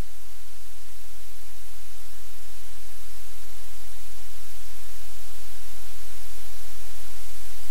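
Steady hiss of static over the room's audio feed, with a steady low hum underneath.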